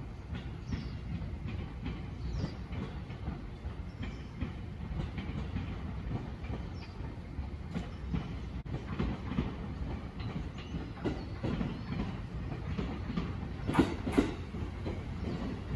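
An E257-series limited express electric train pulls into the station with a steady low rumble of running gear and wheels clicking over rail joints and points. Two sharp clacks come near the end as the front of the train draws close.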